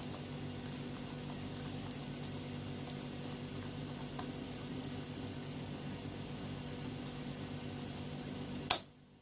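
Faint small clicks and ticks from a key being worked in a small plastic-bodied TSA luggage lock, over a steady low hum. One sharper click comes near the end.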